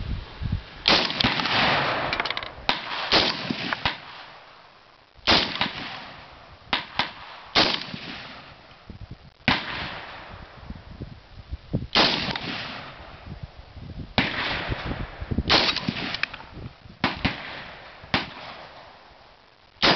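Springfield M1A National Match semi-automatic rifle fired again and again, more than a dozen sharp shots at uneven intervals of one to three seconds, each with a ringing echo trailing off.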